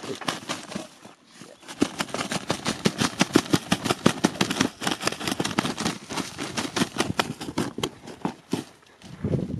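A shot Osceola wild turkey flopping in its death throes, its wings beating against sandy ground and dry grass in a fast, uneven run of slaps.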